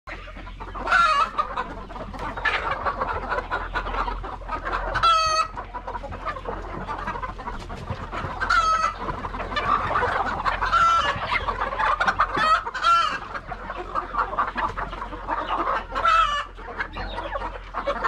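A flock of chickens clucking and calling continuously, with several louder, drawn-out calls, including rooster crows, standing out every few seconds.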